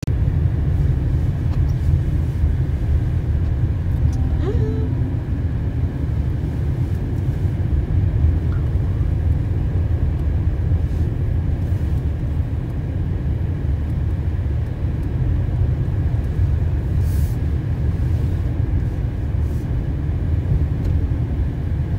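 Steady low road and tyre rumble inside the cabin of a Renault Zoe Z.E. 40 R90 electric car driving on a snow-covered road.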